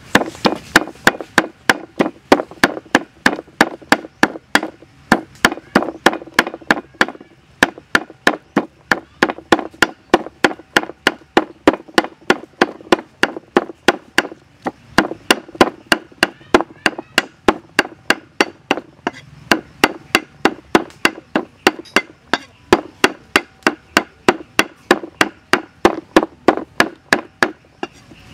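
Heavy cleaver chopping raw fatty meat on a thick round wooden chopping block, mincing it with rapid, even strikes, about three to four a second.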